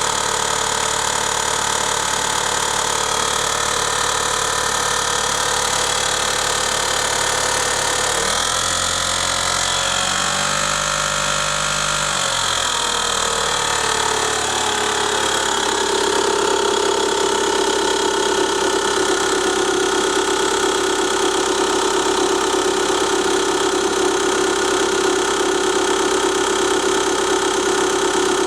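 Mitsubishi RVR engine running with a fast ticking knock from its hydraulic lash adjusters (lifters), which still knock after being flushed. The engine is revved briefly about eight seconds in and settles back to idle by about fourteen seconds.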